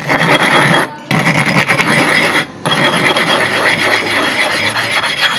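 A hard sharpening stone being ground flat against a rough abrasive surface to wear away the hollow in its face: a loud, continuous gritty rasp, broken by two brief pauses about one and two and a half seconds in.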